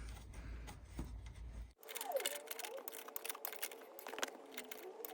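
Light irregular clicks and scrapes of a hand tool tightening a new motorcycle rear brake light switch. A low background hum cuts out just under two seconds in.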